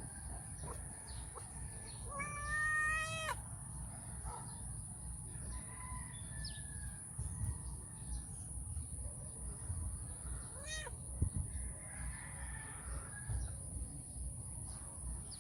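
Domestic cat meowing for attention: one long meow about two seconds in and a short call near eleven seconds.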